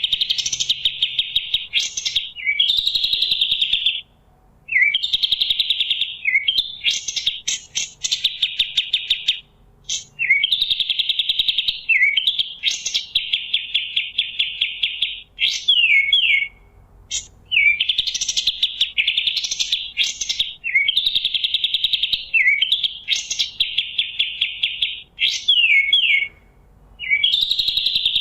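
Kapas tembak songbird singing loud, fast trilled phrases one after another, each a second or two long with brief pauses between, some ending in quick falling notes.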